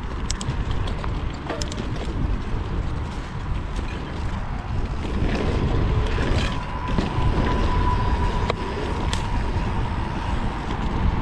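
Mountain bike rolling over a dirt trail, heard from a mounted action camera: a steady rumble of tyres and wind on the microphone, with scattered sharp clicks and rattles from the bike over bumps. A thin, steady whine rises in the middle and fades again.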